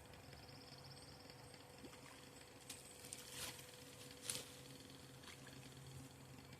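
Near silence with a low steady hum and a few faint clicks and rustles, the loudest about four seconds in.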